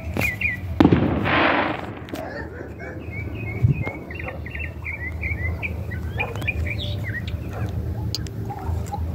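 Small birds chirping over and over in short, quick notes. About a second in comes a sharp loud bang followed by a hissing rush lasting about a second, and near four seconds in a dull thump, over a steady low rumble.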